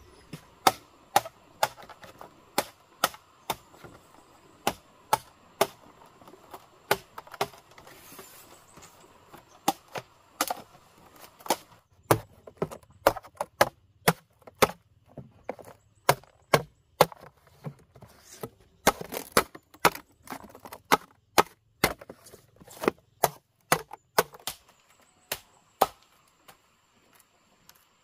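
A machete chopping green bamboo poles: sharp, separate strikes at about two a second, with a few short pauses, stopping near the end.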